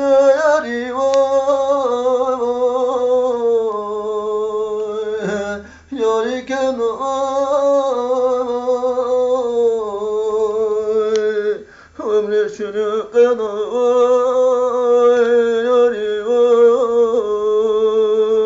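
A man singing unaccompanied in long, drawn-out phrases, each note held and wavering with ornaments. There are three phrases, with short breaks for breath about a third and two-thirds of the way through.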